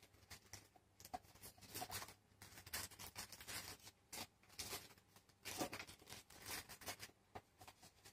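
Faint, irregular rustling and small taps of paper inserts and a cardboard phone box being handled.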